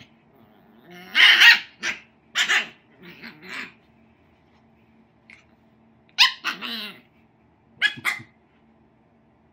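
Puppy barking in short, high yaps, in four bunches with pauses between, while it squirms on its back.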